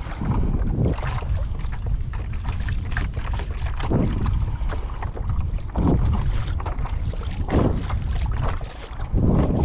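Wind buffeting the microphone, with water sloshing against a kayak's hull in five separate swells.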